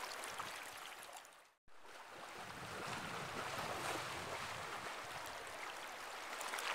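Steady hiss of a flowing river current around a wading angler, briefly cutting out to silence about a second and a half in.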